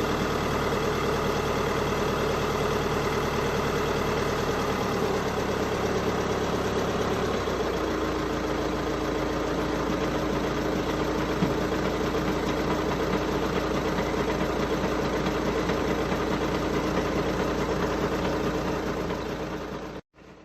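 Volkswagen Passat B7 engine idling cold, with the abnormal engine noise its owner is asking about. The idle note shifts a little about six to eight seconds in, there is a single sharp tick about eleven seconds in, and the sound cuts off suddenly at the very end.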